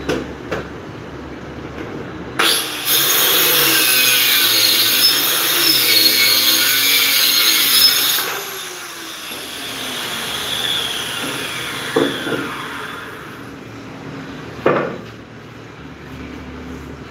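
Handheld electric saw starting up about two seconds in and cutting through a wooden board for about six seconds, its whine shifting under load, then winding down in a long falling whine after the cut. Two sharp knocks follow near the end.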